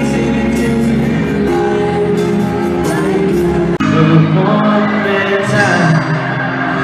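Live pop concert sound recorded from the audience: male voices singing over the band, with crowd noise beneath. An abrupt cut just before 4 s in jumps to another live recording of the same kind.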